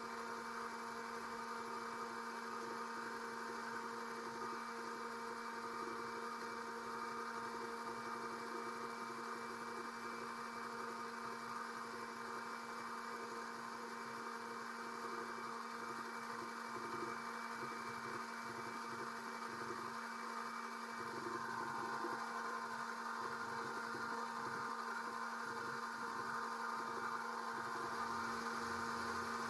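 Electric oil-extractor pump running with a steady hum, sucking the used engine oil out through a thin tube from the top of the engine.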